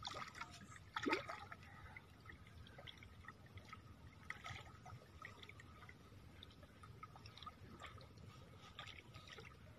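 Faint splashing and trickling of river water as a hooked rohu fish moves at the surface while being hand-lined in to the bank, with one brief louder sound about a second in.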